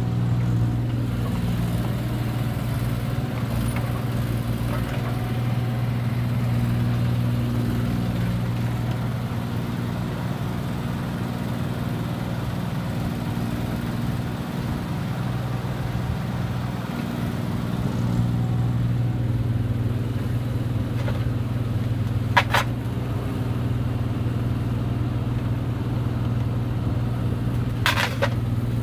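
Bobcat 325 mini excavator's diesel engine running steadily under hydraulic load while the boom, arm and bucket work, its tone easing for a while near the middle and then picking up again. Two short sharp knocks, one about two-thirds of the way in and one near the end.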